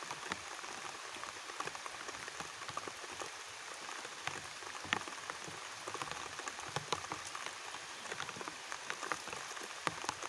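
Steady rain falling, with many separate drops pattering as sharp ticks over an even hiss.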